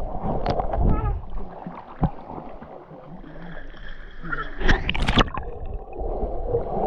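Muffled churning and gurgling of water around a camera held partly under the surface, with a cluster of sharp splashes about five seconds in as legs kick and the camera goes under.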